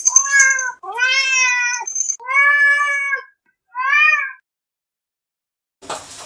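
A cat meowing four times: drawn-out calls of under a second each with short gaps between them, the last one shorter, rising and falling.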